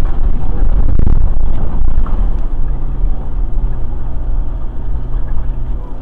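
Toyota Prado 150 engine and drivetrain running under load while towing a camper trailer up a steep dirt bank, a steady low rumble heard inside the cabin. A few sharp clunks come about a second in, then the engine note settles into a steadier hum.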